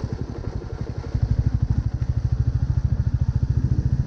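Royal Enfield motorcycle engine running under way, a fast, even beat of exhaust pulses. It is quieter for about the first second, then louder as the throttle opens.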